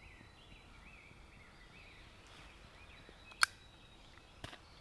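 Faint songbird chirping and warbling over quiet woodland ambience. A single sharp click comes about three and a half seconds in, and a softer click near the end.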